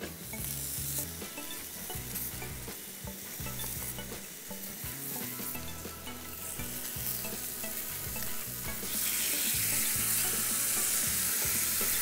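Chicken steaks sizzling on a hot cast-iron sizzler platter, with small crackles. About nine seconds in the sizzle turns louder and hissier as white cream sauce is poured onto the hot plate.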